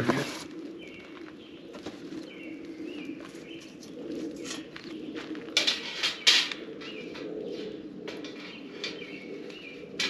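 Wood campfire burning with a steady low rush and scattered crackles, while a metal grill grate is set down on the fire, scraping and clanking loudly for about a second roughly five and a half seconds in. Small birds chirp briefly a few times.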